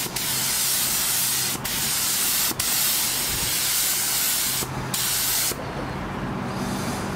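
Gravity-feed paint spray gun hissing as colour coat is sprayed onto a car panel, with brief breaks where the trigger is let off. The spraying stops about five and a half seconds in, leaving a low steady hum.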